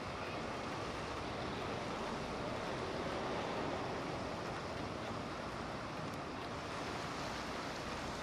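Steady rushing wash of water from a passing motorboat's wake, mixed with wind noise; no distinct engine note stands out.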